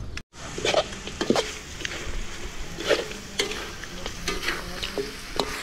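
A metal spoon scraping and clinking against a metal wok as meat is stirred, with the meat sizzling steadily underneath. The sound drops out for a moment just after the start.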